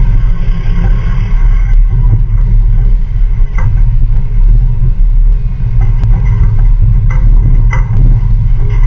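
Diesel truck engine pulling a loaded trailer carrying a backhoe, pulling away under load, heard from the load behind the cab. A steady low rumble and wind buffeting the microphone cover it.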